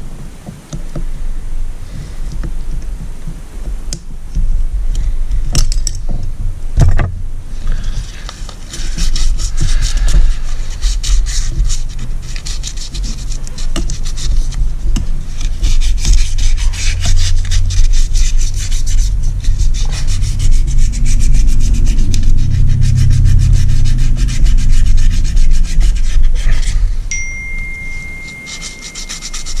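Rapid hand scraping and rubbing on a Mercury Thunderbolt 500 outboard piston, working out carbon that keeps a piston ring sticking in its groove instead of moving freely. A single knock comes about seven seconds in, and a thin steady tone sounds over the last couple of seconds.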